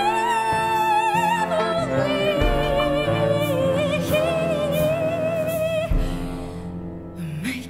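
Woman singing long held notes with wide vibrato into a microphone, over sustained low notes from a small chamber ensemble; the music dies away near the end.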